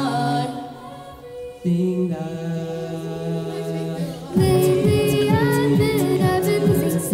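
Youth a cappella group singing live through microphones, layered children's voices in close harmony. About half a second in the texture thins to a softer passage, a low held bass note comes in shortly after, and about four and a half seconds in the full group returns louder over beatboxed kick-drum thumps.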